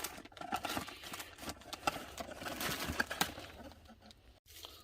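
Irregular small clicks, taps and rustles of a boxed wide-angle conversion lens and its packaging being handled.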